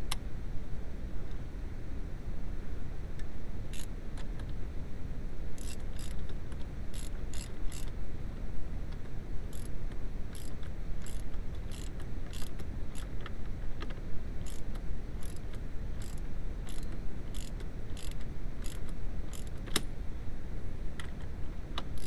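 Socket ratchet wrench clicking in a string of short, sharp clicks about every half second as it is swung back and forth on the steering column. A steady low rumble runs underneath.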